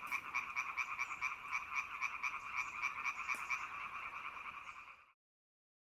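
Frogs croaking in a steady pulsing chorus, about five or six pulses a second, fading out about five seconds in.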